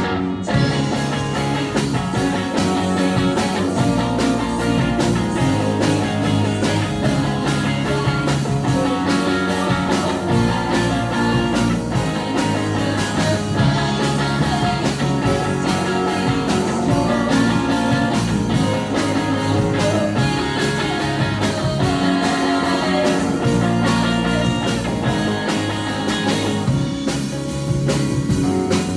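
A live rock band playing: electric guitar, bass guitar, keyboards and a drum kit.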